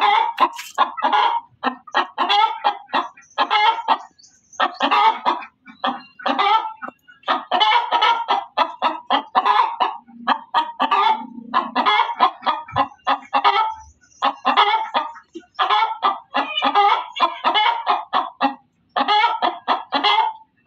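Hen cackling loudly: rapid runs of short, stuttering clucks in bursts of a second or two, with brief gaps between them.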